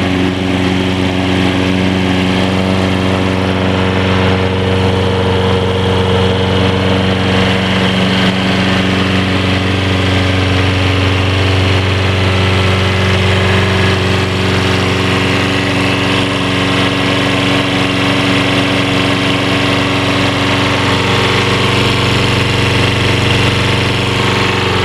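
Briggs & Stratton 190cc single-cylinder engine of a Toro Personal Pace Recycler walk-behind lawn mower running steadily at an even speed.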